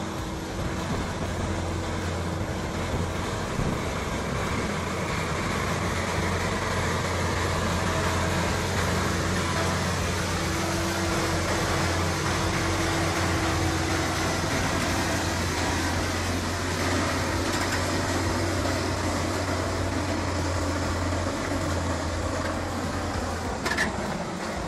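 Astra heavy mining dump truck's diesel engine running steadily as the truck drives, with a constant low hum under it.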